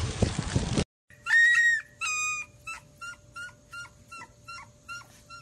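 Fountain water splashing, cut off just under a second in. Then husky puppies give two loud whines, followed by a run of short, fainter squeaks at about three a second.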